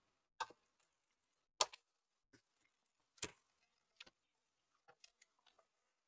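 Faint, sharp clicks of hands fitting parts onto a PC motherboard: three clearer clicks about a second and a half apart, with softer ticks between them.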